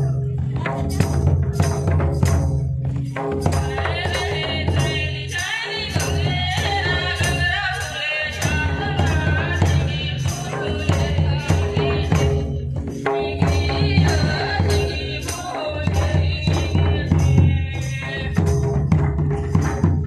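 Jharkhandi Karma folk music: mandar drums beating a steady rhythm with jingling metal percussion, joined a few seconds in by group singing that breaks off briefly near the middle, resumes, and stops shortly before the end.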